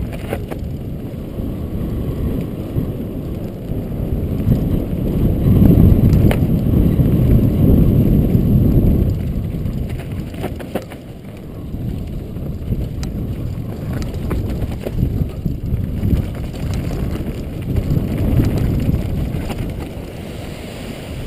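Mountain bike descending a rough dirt downhill track, with steady wind rush on the camera microphone, tyres on loose dirt and a few sharp knocks as the bike rattles over bumps. The rush is loudest from about four to nine seconds in and eases briefly around eleven seconds.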